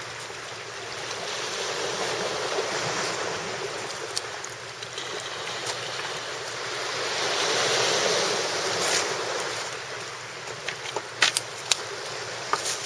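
Sea waves washing in on the shore, the rush of water swelling twice a few seconds apart, with a few sharp clicks near the end.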